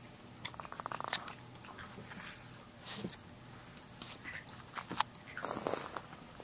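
Puppies playing and mouthing a plush toy: two short bursts of small high-pitched growling, about a second in and again near the end, with light bites and clicks.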